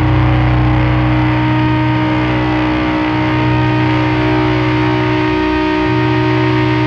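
Sludge doom metal: heavily distorted electric guitars holding a long, low droning chord.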